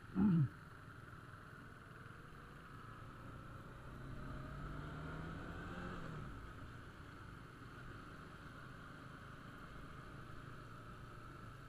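Motorcycle riding sound: engine running with steady wind and road noise, the engine note rising from about four seconds in to about six seconds, then easing off. Just after the start comes a very short, loud sound that falls in pitch.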